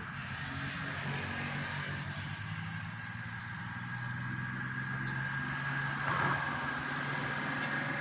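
A steady mechanical hum with a thin high whine running through it, with no sharp knocks.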